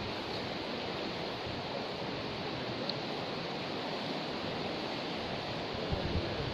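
Steady rushing of a river running high and fast after a flood.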